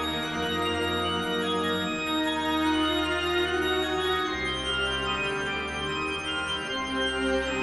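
Background music of long held chords with an organ-like sound, the low note changing about every two seconds.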